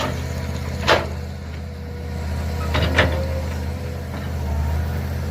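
Mini excavator engine running steadily while digging, with a sharp knock about a second in and two more close together about three seconds in.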